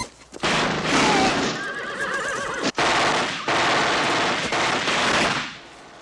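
Long bursts of MAC-10 submachine-gun fire in about three stretches, stopping about five and a half seconds in. A horse whinnies over the firing near the start.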